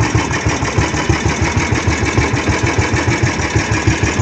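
Engine of a motorized outrigger fishing boat (banca) running steadily, with a fast, even low pulse.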